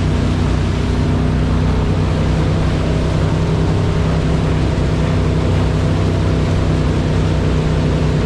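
Wake boat's engine running steadily under way, a constant low hum, over the rushing wash of the surf wake.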